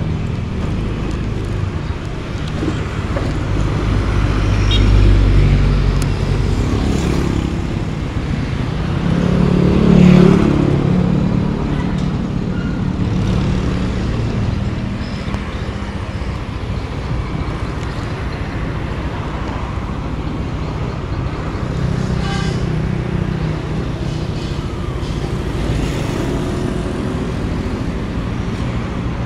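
Motor scooter engine idling with road traffic going by, with two louder swells about five and ten seconds in.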